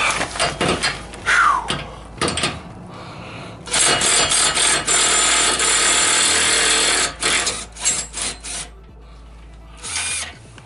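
A handheld power drill runs steadily for about three and a half seconds, then is blipped in several short bursts, working the 14 mm blade bolt on a Honda push mower. Clicks and clatter of handling come before it.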